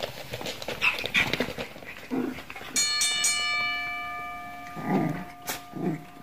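Shiba Inu puppies growling and yipping as they play-fight. About three seconds in, a metallic ringing sound effect is struck and rings on, slowly fading, while two more short puppy growls come over it.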